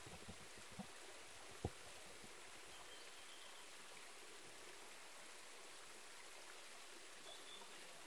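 Faint, steady trickle of a shallow mountain stream running thin over rock slabs in a drought. A few soft low thumps come in the first two seconds, the loudest a sharp knock about a second and a half in.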